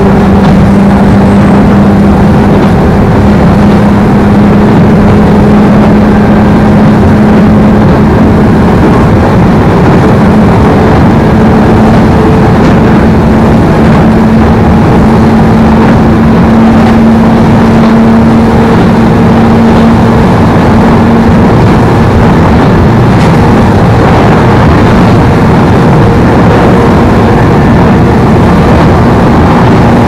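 Inside a 103 series electric commuter train running between stations: loud, steady running noise with a motor whine that rises slightly in pitch over the first twenty seconds.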